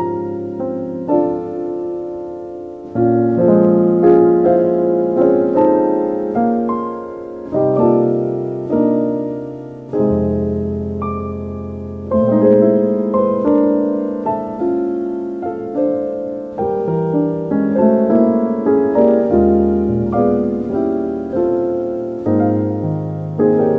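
Soft, slow solo piano music, notes struck and left to ring.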